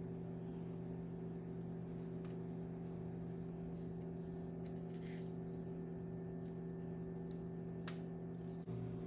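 A steady low hum runs throughout, with a few faint light ticks as long sprinkles are dropped onto a chocolate-coated pretzel rod and its plate.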